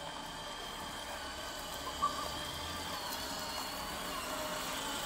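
Children's battery-powered ride-on buggy driving over asphalt, its electric motors and gearboxes whining steadily and growing slowly louder as it approaches, with one brief click about two seconds in.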